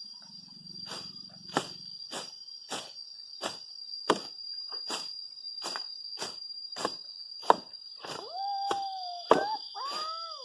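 Sharp rhythmic knocks, roughly three every two seconds, over a steady high-pitched insect drone; two short wavering calls sound near the end.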